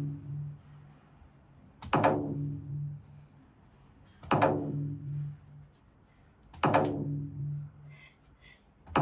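An edited-in sound effect played over and over, about every two and a half seconds: each time a sharp hit with a quickly falling tone, then a low pulsing hum for about a second. It sounds about 2 s in, at about 4.5 s, at about 7 s and again at the very end.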